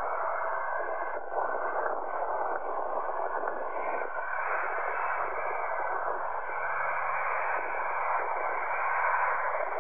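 Jet airliner engines running as the aircraft moves along the runway: a steady rushing roar, heard thin and muffled, with the low end and the highs missing.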